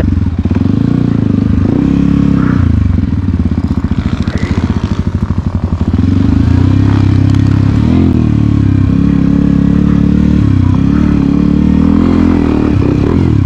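Dirt bike engine heard close up from the rider's own bike as it is ridden over the track, its revs rising and falling. About three seconds in it drops to low revs with a slow, uneven putter for a couple of seconds, then picks up to a steady run again.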